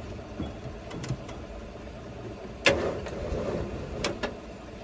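A vehicle engine running low and steady, with a few sharp clicks and knocks over it; the loudest knock comes about two and a half seconds in.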